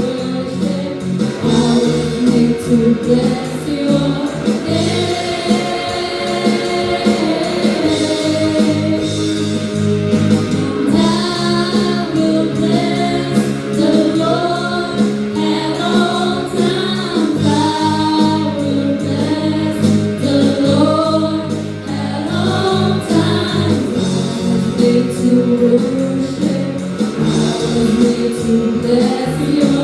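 Junior praise team singing a worship song together as a choir, with band accompaniment.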